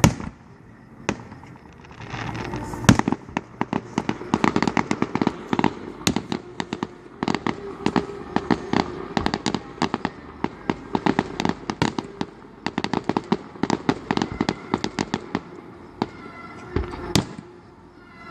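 Fireworks display: a loud bang at the start, then a long dense run of rapid sharp cracks and bangs, thinning out near the end to a couple of single bangs.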